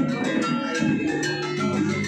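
Balinese gamelan metallophones, gender wayang, playing a quick interlocking figure: ringing metal tones struck at a fast, even pace, the music of a daytime wayang lemah puppet performance.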